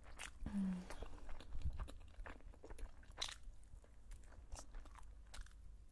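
A person biting and chewing a khinkali dumpling with the mouth close to the microphone: irregular wet smacks and clicks throughout, with a brief low hum of voice about half a second in.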